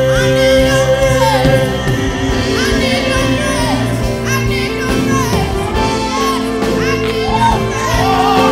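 Live gospel singing: a woman sings lead into a microphone in curling, melismatic runs over instrumental backing that holds long sustained chords.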